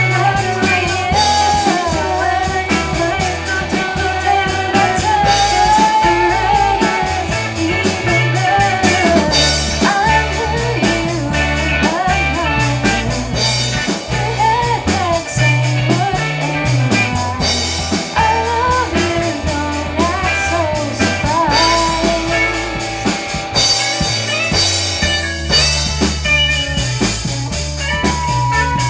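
Pop-rock music with drum kit, bass and guitar playing continuously, and a lead melody that slides and bends in pitch over them.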